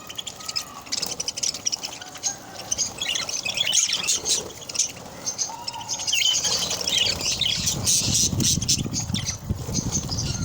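A group of budgerigars chattering, with rapid high chirps and squawks. A low rumble joins them in the second half.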